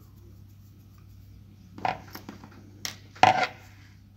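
Small clicks and knocks from handling a 1:10 RC crawler axle and a screwdriver on a wooden table during disassembly. A faint steady hum at first, then a few short clicks about two seconds in and a louder knock a little over three seconds in.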